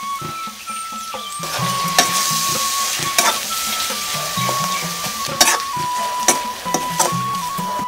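A metal spoon stirs food frying in a metal wok: sizzling, with the spoon scraping and clicking sharply against the pan several times. Flute-led background music with a steady melody plays throughout.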